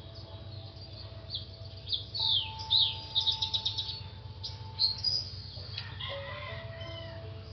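Soft background music with long held notes, and small birds chirping and twittering over it, busiest in the first half, with downward-sweeping calls and a quick trill of repeated notes.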